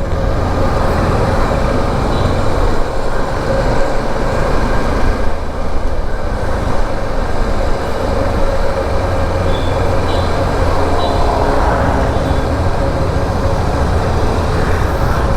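Motorcycle on the move: steady engine and road noise with a low rumble, running evenly. A few faint short high beeps come in about ten seconds in.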